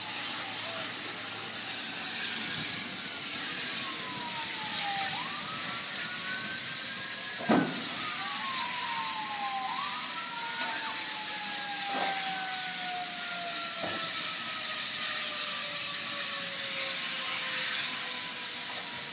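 Several sirens wailing at once, each pitch sliding slowly down and sweeping quickly back up, over a steady rushing hiss. A single sharp bang about midway is the loudest moment, with two fainter knocks after it.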